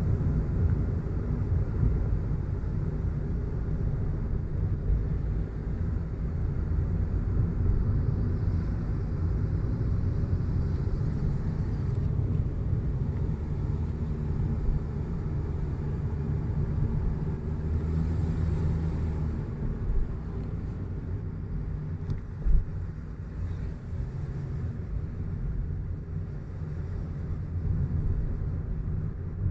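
Steady low rumble of a car driving along a road, with one short knock about three-quarters of the way through.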